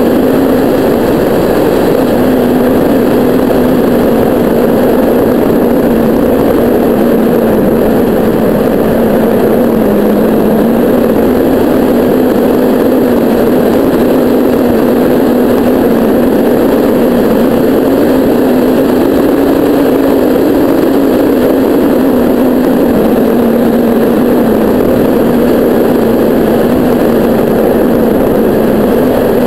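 Steady rush of airflow over a hang glider in flight, loud on the glider-mounted camera's microphone, with a low hum that wavers slowly in pitch.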